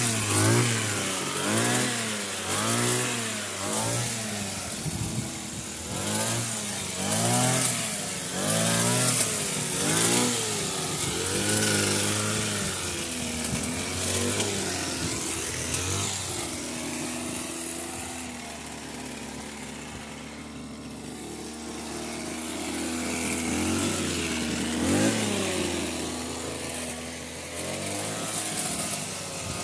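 Two-stroke petrol hedge trimmer engine revving up and falling back over and over as the throttle is squeezed and released while cutting. Past the middle it settles into a lower, steadier run for several seconds, then revs up again near the end.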